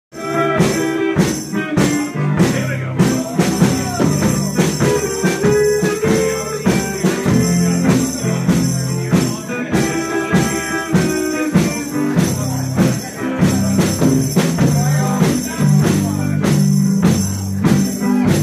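A live band playing loud music with drums, a steady beat of hits and cymbals ringing throughout over a sustained bass line.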